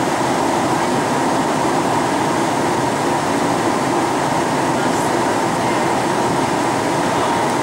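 Steady cabin noise of a Boeing 737-800 in flight, heard inside the passenger cabin: an even rush of airflow over the fuselage with the hum of its CFM56 turbofan engines.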